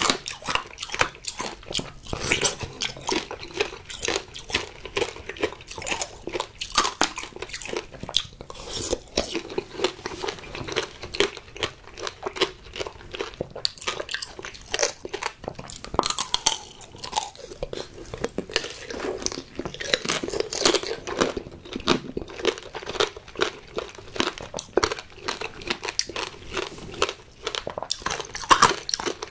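Strawberry tanghulu being bitten and chewed: the hard sugar-candy shell crunches and crackles in rapid, irregular clicks as the strawberry inside is chewed.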